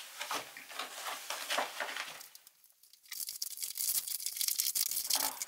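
Heavy plastic MRE outer pouch crinkling and rustling as it is opened and its contents are pulled out by hand, with a short pause just before halfway and denser crinkling after it.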